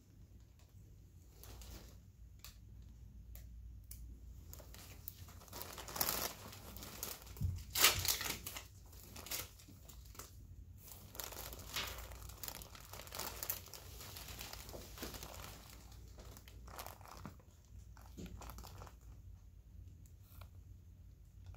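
Crinkling and rustling of paper drape and gauze being handled during suturing, in short irregular scratches that are loudest about six to eight seconds in.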